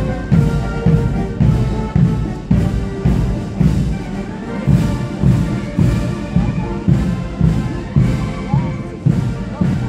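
Military fife-and-drum band playing a march: fifes carry the tune over side drums, with a steady drum beat about twice a second.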